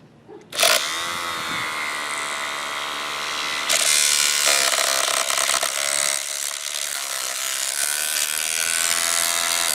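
DeWalt orbital sander switched on about half a second in, its motor spinning up and running loud for about nine seconds. It turns louder and harsher about four seconds in, then stops abruptly near the end. The running sounds wrong: something inside is faulty, with a broken piece of plastic seen inside.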